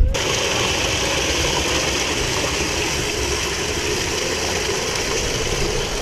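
Steady rushing and splashing of running water from a spring-fed stream, even and unbroken, starting and stopping abruptly.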